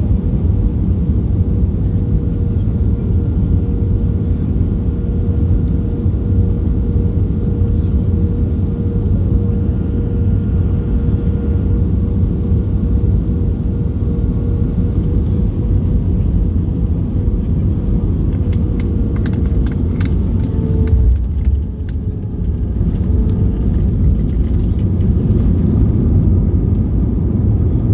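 Airbus A320-214 cabin noise heard from a window seat: the steady drone of its CFM56 engines and rushing air, with a faint steady whine. About two-thirds of the way through come a few sharp clicks and knocks and a brief dip in the noise, and the whine shifts slightly in pitch.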